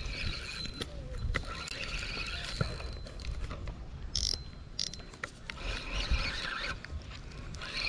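Fishing reel being wound in with mechanical clicking as a hooked fish is played on the line, with a short sharp high sound about four seconds in.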